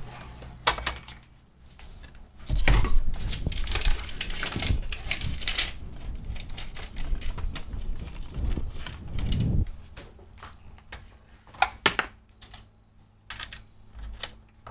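Cables and their plugs being handled and dragged on a workbench. A dense clatter of knocks and rustles lasts several seconds, then a few separate clicks follow.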